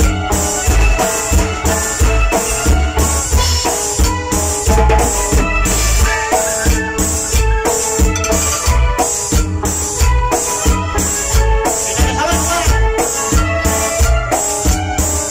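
Tropical cumbia band playing, pitched instruments over a steady, even drum beat.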